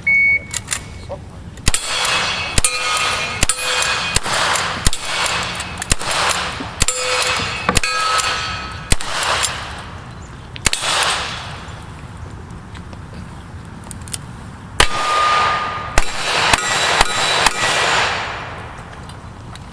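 Shot-timer start beep, then a fast string of rifle shots, each followed by steel targets ringing, for about nine seconds. After a pause of a few seconds comes a second quick string of revolver shots, again ringing steel.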